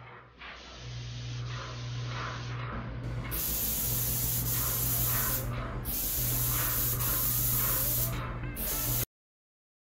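Paint spray gun hissing as it sprays enamel onto a wall, over a steady low hum. The spray gets louder about three seconds in, breaks off briefly twice, and then cuts off suddenly near the end.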